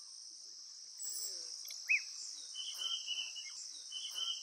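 Steady high-pitched chorus of crickets and other insects. From about a second in, a run of short, high squeaky calls and chirps rises over it; the loudest is a brief arching chirp midway through.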